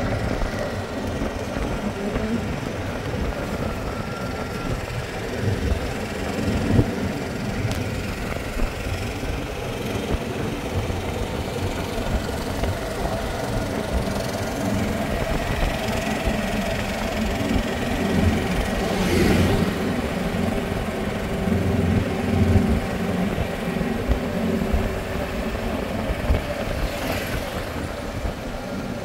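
Golf cart driving along a paved road: a steady motor hum over road and wind noise.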